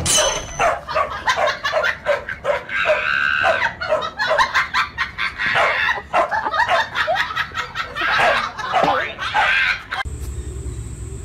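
Dogs barking and yapping in quick succession, short sharp calls one after another. About ten seconds in they stop abruptly, giving way to a steady low hum.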